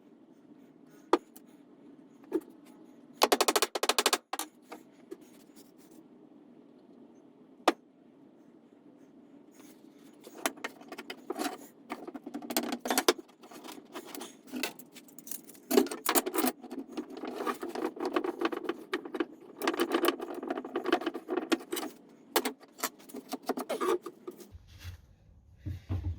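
Wooden dowels and timber pieces being handled and pushed together while test-fitting dowel joints: a few single clicks, a short rattle about three seconds in, then a long run of quick clicks and knocks from about ten seconds in.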